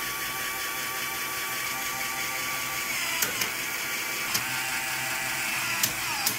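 Motor-driven Lego Technic gearbox running: a steady whir of plastic gears and differentials, joined from about three seconds in by a string of sharp plastic clicks.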